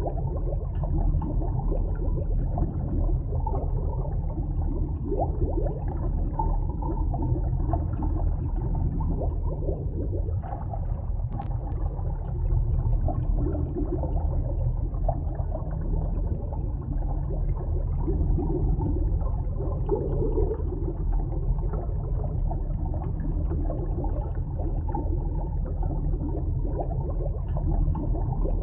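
Underwater sea ambience: a steady low rumble of water with faint gurgling.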